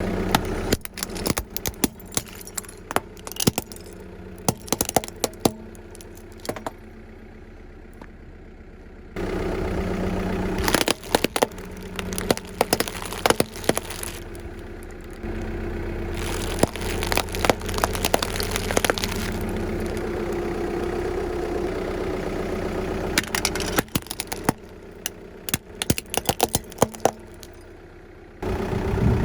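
Car tyres rolling over and crushing crunchy objects: many sharp cracks and crackles over a car engine idling. The engine hum jumps in level several times.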